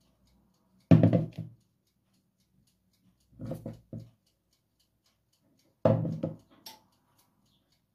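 Kitchen bowls being set down and shifted on a countertop: a plastic bowl knocks down about a second in, a glass bowl gives a few quick clinks and knocks around the middle, and there is another knock at about six seconds.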